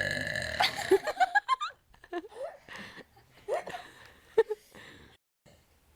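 A girl's long burp that ends about half a second in, followed by bursts of high-pitched laughter that trail off.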